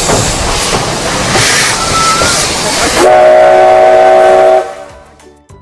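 Steam locomotive hissing loudly as it blows off steam. About three seconds in, its steam whistle sounds one chord-like blast that lasts about a second and a half, then dies away.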